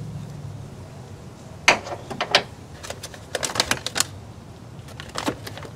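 Sharp, irregular clicks and clacks of small hard objects being handled: a quick run of about a dozen, starting about two seconds in, and one more near the end, over a low steady hum.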